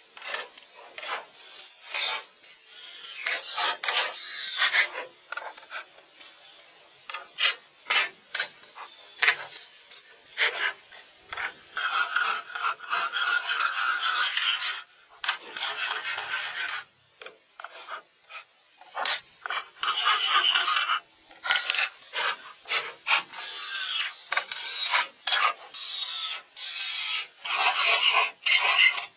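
Repeated hand scraping or rasping strokes on wood, irregular, coming in quick runs with short pauses between them.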